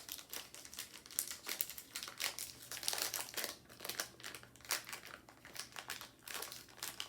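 Packaged snack-cake wrapper crinkling and rustling as it is handled and opened, a run of irregular crackles throughout.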